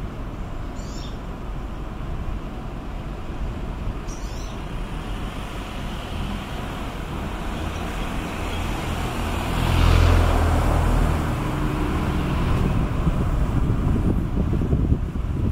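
Street traffic noise with a steady rumble, swelling as a motor vehicle passes close about ten seconds in.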